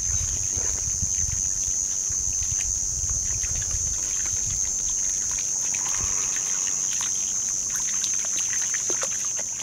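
A steady high-pitched drone of insects throughout, over soft splashes and light clicks as a Jack Russell terrier wades through shallow water along a pebble shore.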